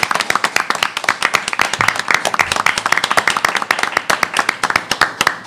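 Several people applauding by clapping their hands, a dense, steady run of claps that thins out near the end.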